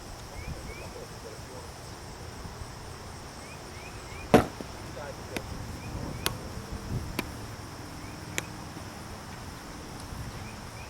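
Plastic wiffle ball bat striking the ball: one sharp, loud crack about four seconds in, followed by a few fainter clicks. A steady high insect drone runs underneath.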